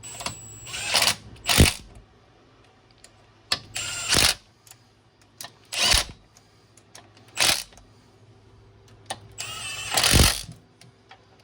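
A power tool run in about seven short bursts, one to two seconds apart, driving in the bolts of the centering plate brackets.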